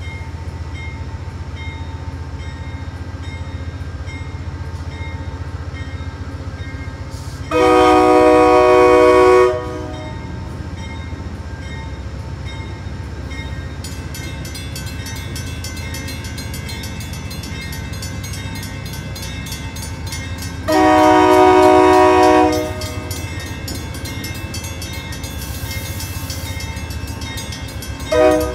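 An approaching train's multi-note air horn sounds two long blasts, each about two seconds and about thirteen seconds apart, then a short toot near the end. A steady low rumble runs underneath.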